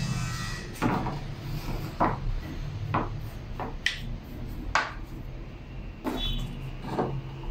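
Small cut wooden blocks being picked up and set down on a workbench: about eight light wooden knocks and clacks at irregular intervals, over a steady low hum.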